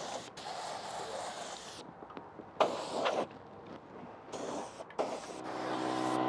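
Air spray gun hissing as it mists ACF50 anticorrosion fluid onto a motorcycle: a steady spray that stops just before two seconds in, then two short bursts as the trigger is pulled again. Near the end a steady droning hum swells in.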